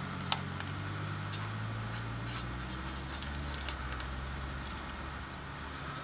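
A few sharp clicks and light knocks of hands working a brake caliper and its greased slide pin, over a low, steady hum.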